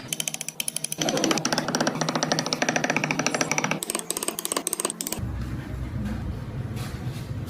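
Power tool working wood, chattering with rapid repeated strikes, then changing to a lower, steadier hum about five seconds in.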